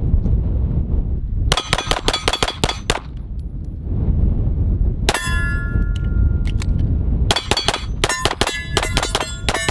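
Handgun fired in quick strings at steel targets: several fast shots about a second and a half in, a single shot near the middle followed by a plate ringing on, then a rapid string near the end, with hits clanging and ringing. Wind rumbles on the microphone underneath.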